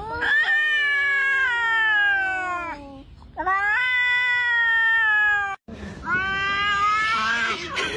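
Cats yowling in a face-off: two long, drawn-out yowls with slowly falling pitch, each two to three seconds. This is a threat display between rival cats before a fight. After a sudden break, another cat yowls near the end.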